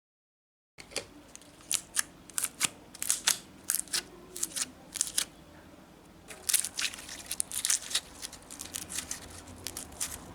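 Hands handling crinkly craft materials or packaging: irregular sharp clicks and crackles, several a second, starting about a second in.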